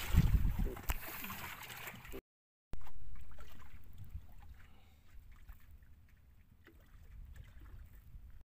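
Water sloshing and running against a small outrigger boat's hull and float in a fairly strong current, coming in loud after a short cut to silence and then settling. Before the cut comes a couple of seconds of rough rumbling from the microphone rubbing against clothing.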